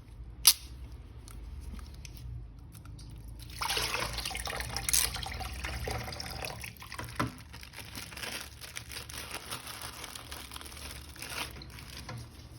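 Running water, as from a tap, rinsing a plastic action figure. It starts about three and a half seconds in and stops near the end. A sharp click about half a second in is the loudest moment.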